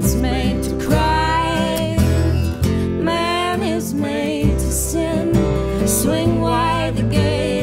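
Folk song played on a strummed acoustic guitar and a plucked upright bass, with a sung vocal line held in long, wavering notes.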